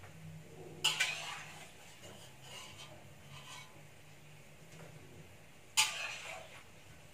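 A metal ladle clanking against a wok and pot during cooking: two sharp clanks, about a second in and again near the end, each followed by a short clatter. A steady low hum runs underneath.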